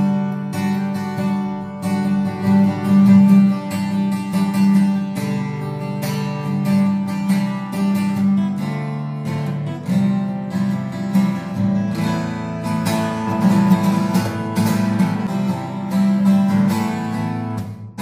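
Washburn WD10 acoustic guitar strummed in a steady rhythm, moving through a sequence of chords.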